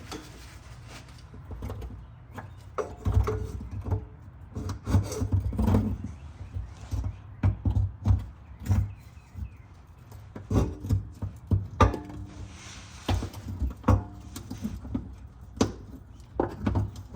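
Irregular knocks, clunks and scrapes of tools and parts being handled during hand work on a car, a few of the knocks ringing briefly.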